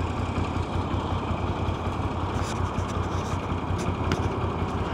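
Motorcycle engine running steadily at low revs, with road noise.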